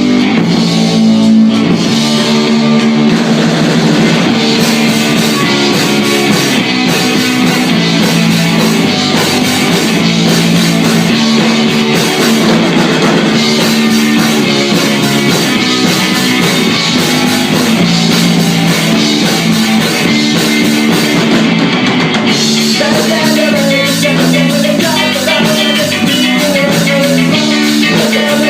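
Rock music with drum kit, guitar and singing, loud and steady; about two-thirds of the way through the arrangement changes and a wavering lead line comes in.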